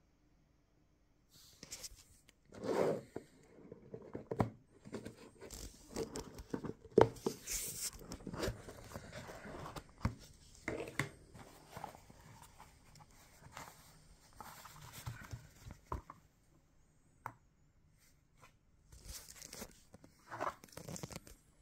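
Handling noise from opening a cardboard pipe box and lifting out a briar pipe: wrapping rustling and scraping, with scattered light taps and clicks on a wooden desk. It is busiest for the first three-quarters, goes quiet, then comes back briefly near the end.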